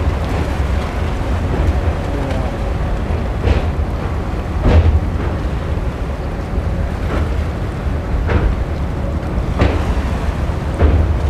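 Passenger train running, heard from its open doorway: a steady rumble of wheels on track and heavy wind on the microphone. From about three seconds in, a clack sounds about every second and a quarter as the wheels cross rail joints.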